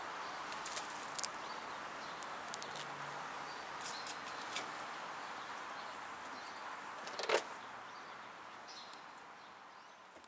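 Kittens playing: scattered light clicks and taps over a steady hiss, the loudest a little after seven seconds in, then the sound fades out.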